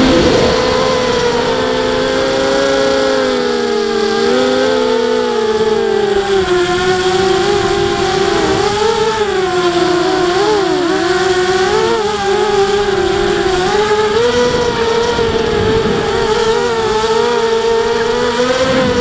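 FPV racing quadcopter's four Emax 2280kv brushless motors spinning 5030 props: a steady buzzing whine whose pitch sags, wobbles and climbs back with the throttle changes of the flight.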